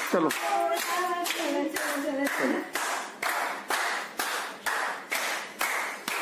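Group of people clapping hands in a steady rhythm, about two claps a second, with voices singing along over the first couple of seconds: devotional clapping keeping time to a song.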